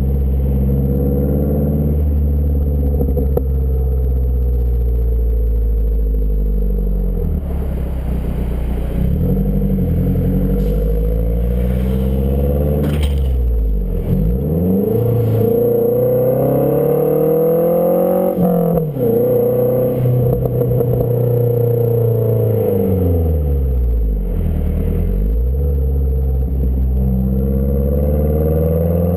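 2012 Mazdaspeed 3's turbocharged 2.3-litre four-cylinder exhaust, through a CP-E downpipe with high-flow cat, its note rising and falling over several seconds at a time as the revs climb and drop. The revs fall sharply once, a little past the middle.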